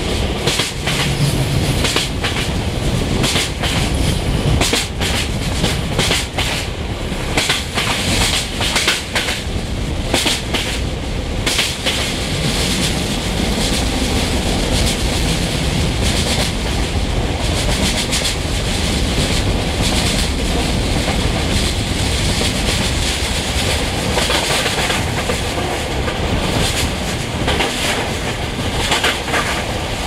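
Class 614 diesel multiple unit running along the line, its wheels clicking over rail joints in a quick clickety-clack over a steady rolling rumble. It is heard close up from an open window at the side of the train.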